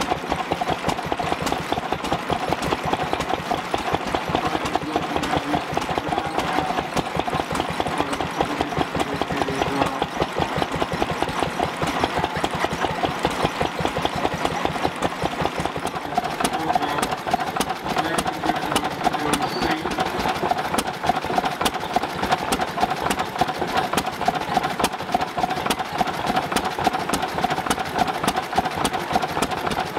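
Small Lister stationary engine running steadily, belt-driving a reciprocating water pump, with a fast, even knocking beat that carries on throughout.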